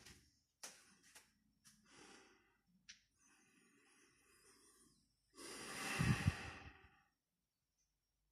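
A man breathing close to the microphone: several short breaths in the first few seconds, then one long, loud exhale about five and a half seconds in.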